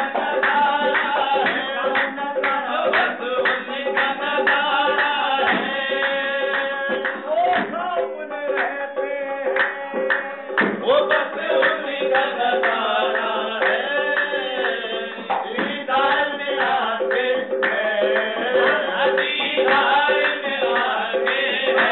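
Qawwali: a harmonium holding steady chords under a lead singer and a chorus of men's voices, with hand claps and drum strokes keeping a steady beat.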